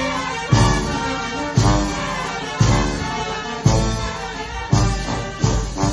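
Dance music with brass instruments, with a heavy bass beat about once a second.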